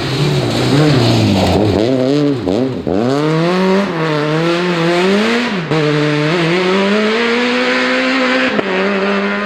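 A rally car engine under hard throttle. Its pitch climbs and drops sharply again and again as the driver changes gear and lifts off, with several quick dips in the first few seconds and then longer pulls.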